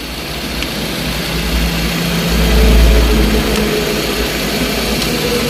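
Suzuki Futura 1.5 injection engine idling steadily with its radiator cap off, swelling slightly a little past halfway. Gas is bubbling up through the coolant, which the mechanic takes for a compression leak into the cooling system, possibly a leaking head gasket.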